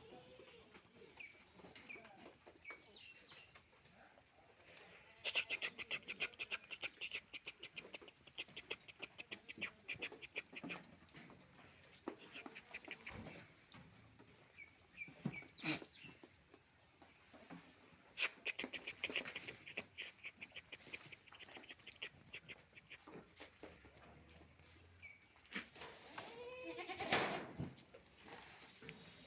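Sirohi-cross goats bleating, with one loud, wavering bleat near the end. Between the calls come two stretches of rapid clicking or rattling.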